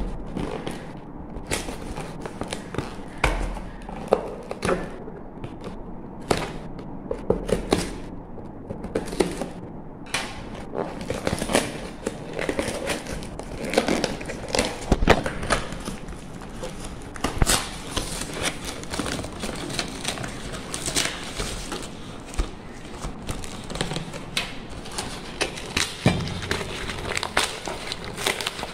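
Cardboard box sealed with clear plastic packing tape being torn open by hand: irregular crackling, ripping and rustling of tape and cardboard, with frequent short knocks and clicks from handling the box.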